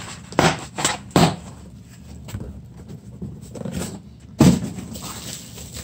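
A cardboard shipping box and packing paper being handled and cleared away: a few sharp knocks and rustles in the first second or so, then a louder thump about four and a half seconds in.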